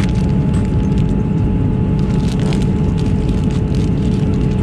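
Airliner cabin noise in flight: a steady low rush with a constant hum. Light crinkling of plastic sachets being handled is heard faintly on top.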